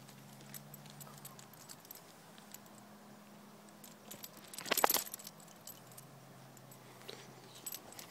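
Small metal pieces jingling in scattered light clicks, with one louder ringing jangle about five seconds in, over a faint steady low hum.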